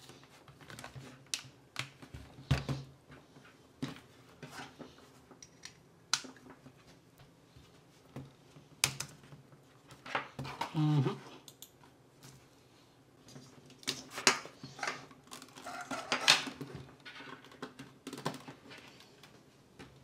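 Irregular clicks and taps at a computer desk: keys being typed and a USB-C hub and its cables being handled. The taps come sparsely at first and grow busier in the second half.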